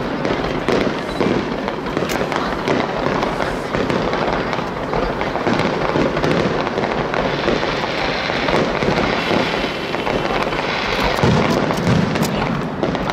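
Fireworks display: aerial shells bursting in a dense, continuous barrage of sharp bangs and crackling.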